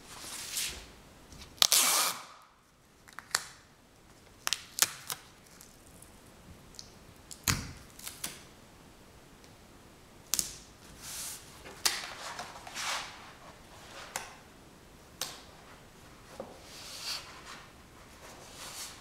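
Scattered clicks, taps and short rustles at irregular intervals, the loudest burst about two seconds in.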